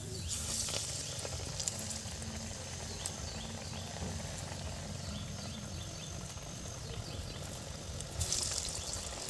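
Parippu vada (Kerala dal vada) patties frying in hot oil in a pan: a steady sizzle with many small crackles. The sizzle flares up just after the start as one flattened patty goes into the oil, and again near the end as a second is added.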